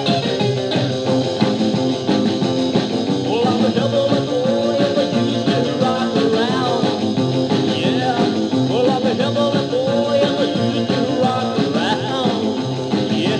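1950s-style rockabilly recording in an instrumental stretch: guitar over a steady beat, with bending, sliding notes from about three seconds in.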